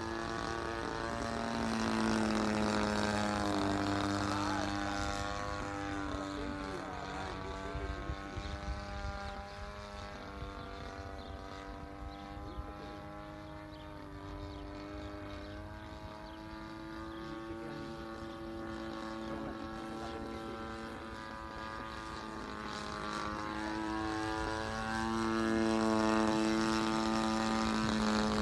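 Extra 360 aerobatic propeller plane flying overhead, its engine and propeller a droning note that rises and falls in pitch. It is louder near the start, fades in the middle and swells again near the end as the plane passes closer.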